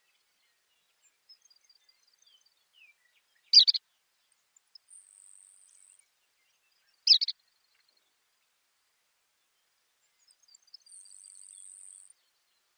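Baird's sparrow singing: faint, high tinkling notes and high buzzy trills, with two loud, short, sharp notes about three and a half seconds apart.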